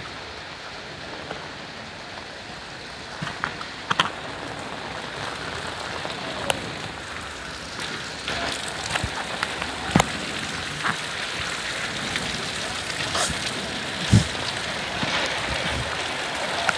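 Heavy rain falling on a flooded street: a steady hiss of rain on standing water, growing a little louder about halfway through, with scattered sharp taps of drops striking close by.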